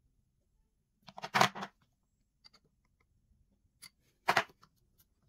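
Metal parts of a Proxxon PD250/E mini lathe's compound slide and tool post knocking as they are handled and adjusted: a quick run of clattering knocks about a second in, a few faint clicks, then another sharp knock a little after four seconds.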